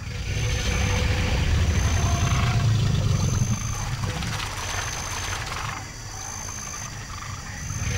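Male American alligator bellowing: a deep, low rumble, loudest in the first half. The infrasonic part of the call makes water spray up off its back, with a rough spattering noise above the rumble.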